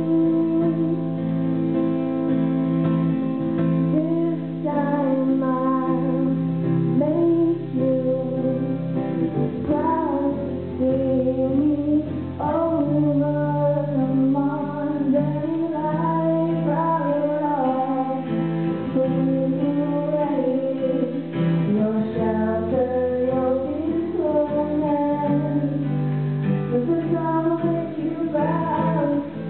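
Two acoustic guitars strumming chords while a girl sings a song; the voice comes in about four seconds in.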